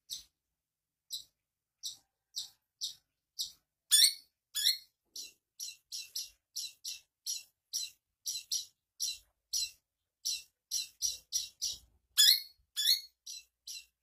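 Caged long-tailed shrike (East Javan pentet) singing a run of short, high notes that quicken to about three a second, with louder down-slurred calls about four seconds in and again near twelve seconds. Its song is filled with mimicked phrases of cak ijo and kapas tembak.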